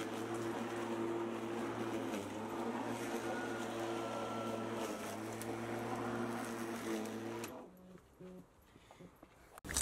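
Greenworks electric lawn mower running steadily with a hum and the whirr of its blade, then shutting off about seven and a half seconds in and winding down quickly.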